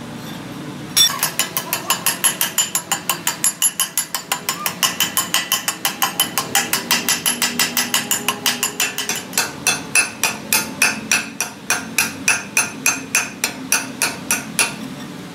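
Chipping hammer rapping on a freshly laid weld bead on a steel axle housing, knocking off the slag: quick metallic strikes about four a second from about a second in, slowing to about three a second after about nine seconds, and stopping near the end.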